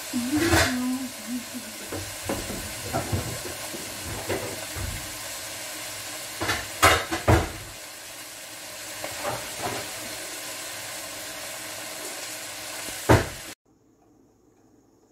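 Kale and onions sizzling steadily in a pot, with the knock and clatter of cookware being rummaged through for a lid, loudest about a second in, around seven seconds in and just before the end. The sizzle cuts off suddenly near the end.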